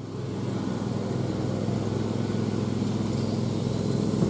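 Steady low mechanical rumble, like an engine running, which swells up at the very start and then holds even.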